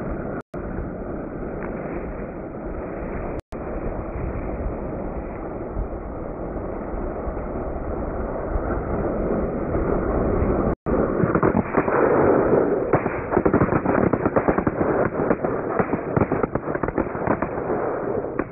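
Fireworks going off in a dense, continuous crackle, broken by brief dropouts. About eleven seconds in it grows louder, into a rapid run of sharp pops.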